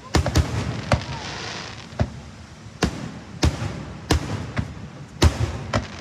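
Fireworks going off: a string of about ten sharp bangs at irregular intervals, several coming in quick clusters.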